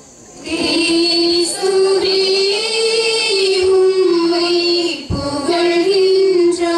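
A high female voice sings a short melodic sung response, one melody line with a brief break about five seconds in. It follows the close of the Gospel reading at a Tamil Catholic Mass, in the place of the sung acclamation after the Gospel.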